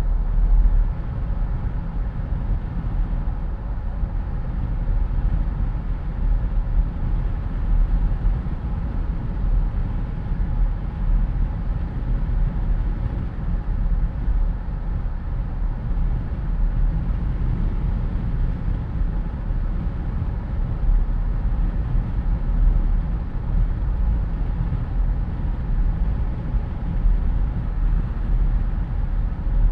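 Jeep Wrangler driving with the windows down: steady wind rush through the open cabin over a low road and engine rumble.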